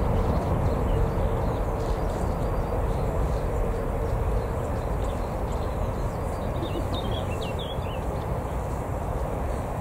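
Jet airliner engines rumbling steadily, with a faint whine that fades out about halfway through while the rumble slowly eases. A few bird chirps come in near the end.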